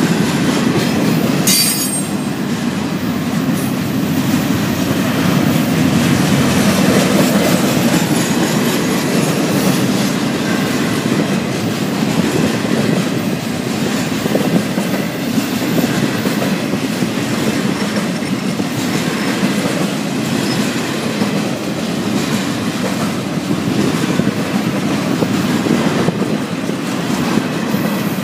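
Double-stack intermodal well cars of a freight train rolling past: a steady rumble and rattle of steel wheels on rail, with a sharp clank about a second and a half in.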